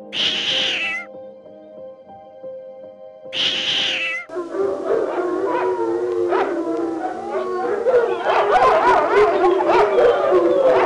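Two short animal calls over soft piano music, then, about four seconds in, a dense chorus of many animals calling at once, overlapping cries sliding up and down in pitch.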